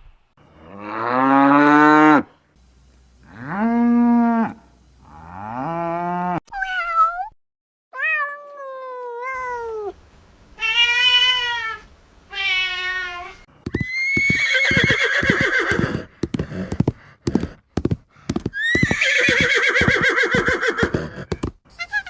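A run of separate animal calls edited one after another. Several drawn-out pitched calls rise and fall in the first half, then quick gliding calls follow, and longer, rougher, quavering calls close it out.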